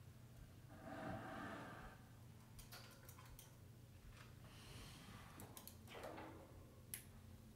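Near silence: room tone with faint rustling and a few light clicks.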